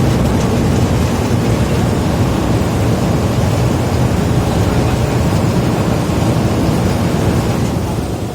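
River ferry's engine running with a steady low rumble under the rush of water and wind on the microphone, easing a little near the end.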